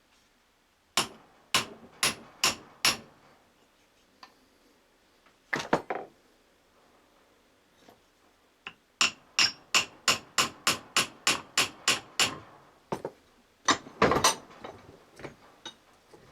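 Hammer tapping on the parts of a driveshaft universal joint during assembly: five sharp taps, a short cluster, then a quick run of about a dozen taps at roughly four a second, and a few harder taps near the end.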